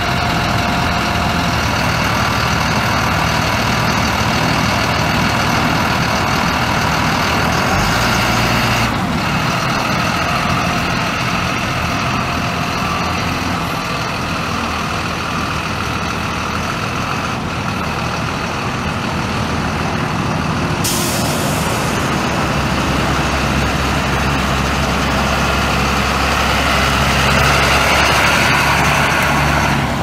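Caterpillar 3116 six-cylinder turbo diesel of a school bus running, with a short burst of air hiss a little past the middle, typical of the air brake system. The low engine note grows stronger over the last third.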